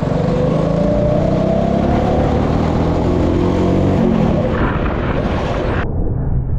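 Go-kart's small gas engine running under throttle, its pitch climbing steadily for about four seconds and then dropping off as it eases back.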